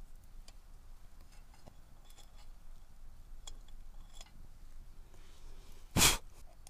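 Small metallic clicks and ticks as a hurricane lantern's wick knob and globe are handled. About six seconds in there is one short, loud scratch and flare of a match being struck.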